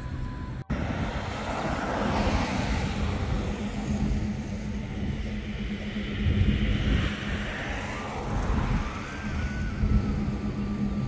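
Steady low motor hum with a rushing noise that swells and fades. The sound drops out briefly about a second in, and a few faint short chirps come near the end.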